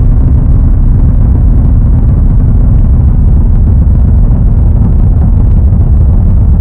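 Emergency alert alarm sound: a loud, steady low rumble with a thin, high, constant whine above it.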